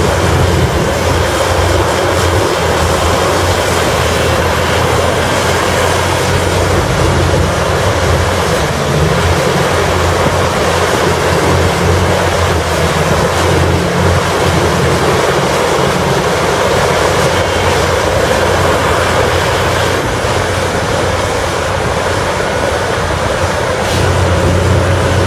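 Caterpillar 6015B mining excavator's diesel engine running steadily under load as the machine digs and loads, a deep, continuous rumble.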